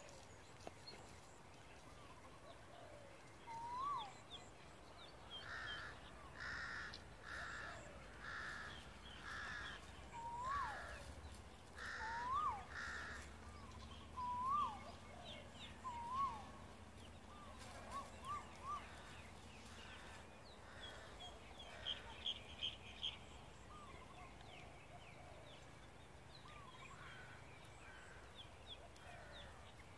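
Birds calling: a run of about eight harsh, evenly spaced calls over several seconds, with short whistled chirps from other birds around them and a quick series of four high chirps later on.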